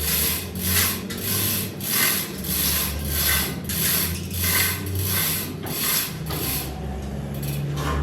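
Rasping back-and-forth strokes of a hand tool worked over metal, about three strokes every two seconds, over a low steady hum; the strokes stop near the end.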